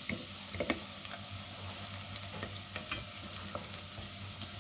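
Chopped shallot sizzling gently in melted butter in a stainless steel saucepan, stirred with a wooden spoon that scrapes and knocks lightly against the pan now and then. The shallot is being softened until just barely golden.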